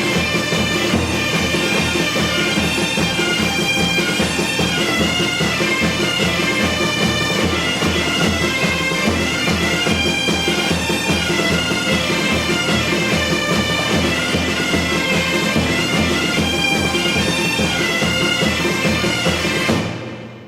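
Bagpipe music, a melody over a steady drone with a regular beat underneath, fading out near the end.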